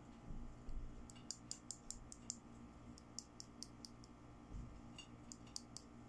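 Light clicks and taps of fingernails on a small toy nail polish bottle as it is turned in the hands, coming in quick runs, with a couple of soft handling bumps.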